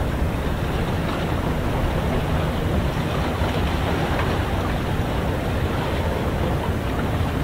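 Steady low rumbling outdoor noise of wind and water, unchanging throughout.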